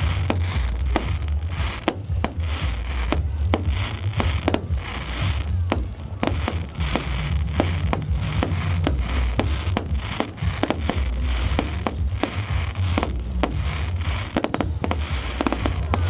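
Fireworks display: a dense run of bangs and crackles, several a second, over a steady low rumble.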